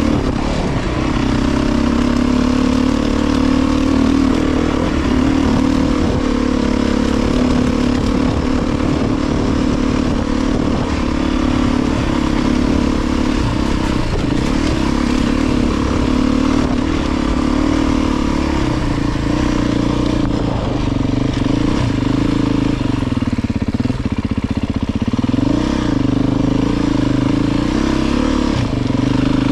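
Beta 350 RR dirt bike's single-cylinder four-stroke engine running steadily under way, its pitch dipping and rising a few times near the end as the throttle is eased and opened.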